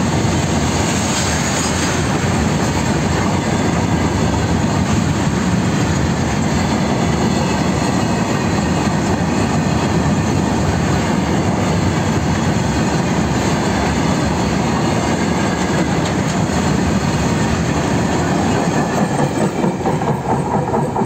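Freight train of open goods wagons passing close by, the wheels rolling over the rails in a steady, loud rumble. Near the end the sound turns uneven as the train's tail and brake van go by.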